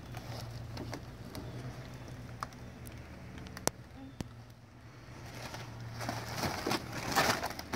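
Quiet rustling and crinkling of foil star balloons being handled, building up near the end, with a few sharp light clicks in the middle, over a steady low hum.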